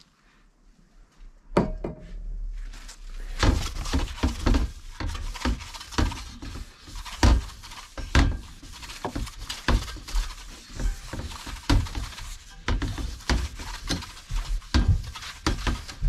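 A rag rubbing around a bicycle wheel rim as it is wiped down with degreaser, an irregular scrubbing noise broken by frequent knocks and clatters as the wheel is handled. It begins after a single knock about a second and a half in.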